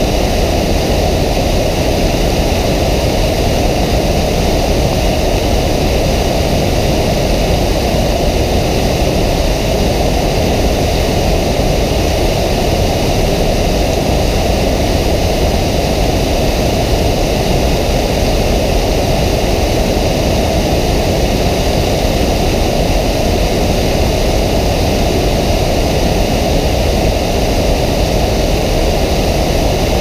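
Waterfall: water pouring steadily over a wide curved weir into churning white water, a constant heavy rush weighted toward the low end, unchanging throughout.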